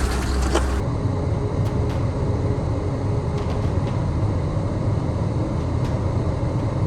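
Pickup truck driving slowly over a rough, snowy trail: a steady low rumble with a few faint knocks. It starts abruptly just under a second in, after a brief burst of rustling and clicking noise.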